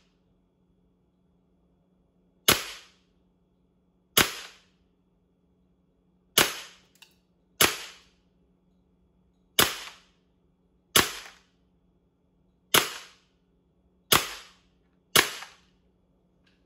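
Sig Air M18 airsoft pistol firing nine single shots, one to two seconds apart, each a sharp crack with a short fading tail.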